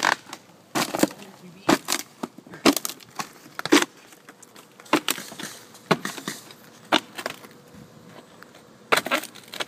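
Old wood roof shakes being torn off and broken, a string of sharp wooden cracks and clatters roughly once a second.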